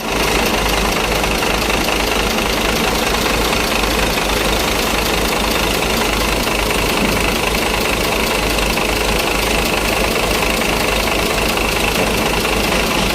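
Diesel engine of a Dongfeng Chenglong truck running steadily at idle, an even mechanical clatter.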